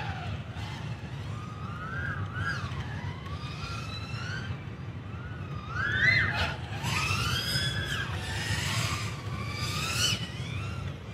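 Brushless motors and propellers of a 3-inch FPV drone whining, the pitch sweeping up and down again and again as the throttle is punched and cut, over a steady low rumble.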